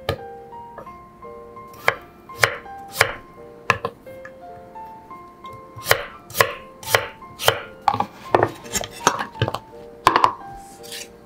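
Kitchen knife slicing a peeled raw potato on a wooden cutting board: crisp chops of the blade through the potato onto the board, at first about half a second to a second apart, then in a quicker run near the end.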